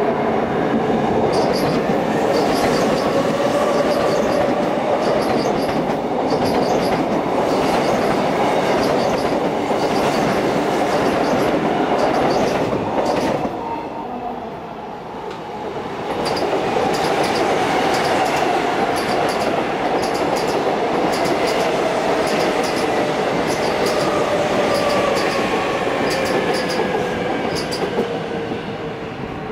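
Seoul Subway Line 2 electric trains passing on elevated track, wheels clicking over the rail joints in a regular rhythm under a steady running noise with a slowly falling whine. The sound dips briefly about halfway through, then a second train passes in the same way.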